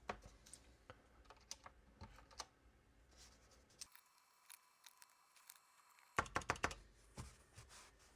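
Plastic keycaps being pressed onto mechanical keyboard switches: faint, scattered clicks, with a quick run of several clicks about six seconds in.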